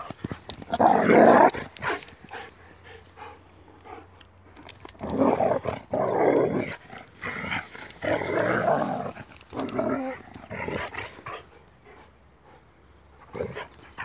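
Two dogs growling at each other in rough play, in several loud bouts that die down near the end.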